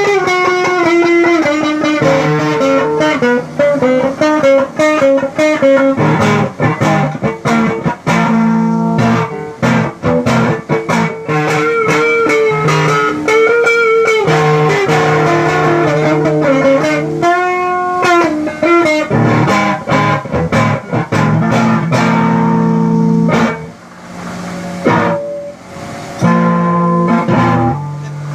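Guitar played through an effects unit: a single-note melody with string bends and vibrato over lower sustained notes, with a couple of brief quieter stretches near the end.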